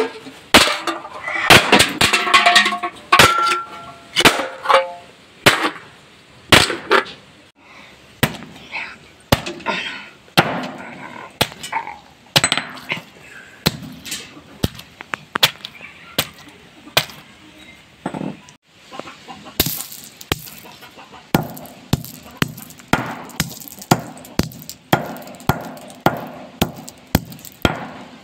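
A hammer striking objects on a concrete floor over and over with sharp blows: first aluminium drink cans, then a soft food item, then a scattering of sunflower seeds. The blows come about once a second at first and about twice a second for the sunflower seeds.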